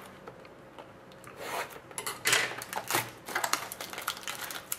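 Plastic wrapping being torn off a small cardboard trading-card box and the box handled: a run of irregular crinkling, rustling and scraping that starts about a second and a half in.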